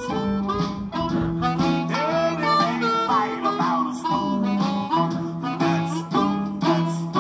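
Hohner Blues Harp harmonica in A played through a cupped Shure Green Bullet microphone and a Boss Katana Mini amplifier, in a blues line with sliding, bent notes. Backing music with low, held notes plays underneath.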